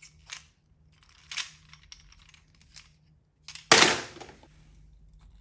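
A few light clicks of hard plastic toys being handled, then a louder sharp clatter about three and a half seconds in as a plastic toy fish is dropped back into a bowl of other plastic toys.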